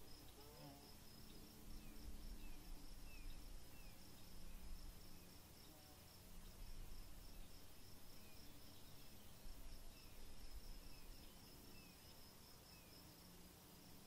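Faint outdoor ambience: a steady, pulsing high insect trill, with two short runs of quick falling chirps and a low rumble beneath.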